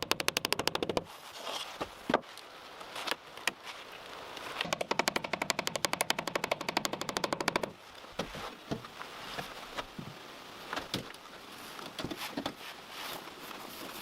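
Rapid, evenly spaced sharp taps in two bursts, at about a dozen a second: a short burst at the start and a longer one of about three seconds near the middle, with scattered single knocks in between and afterwards.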